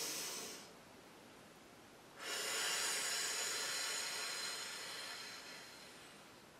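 A woman breathing slowly and deeply. One breath ends about half a second in. After a short pause, a long breath starts about two seconds in and fades away over about four seconds.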